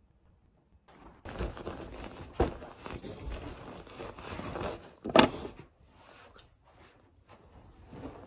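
Close handling noise: bedding rustling near the microphone with a few knocks, the sharpest just after five seconds in, then only faint movement.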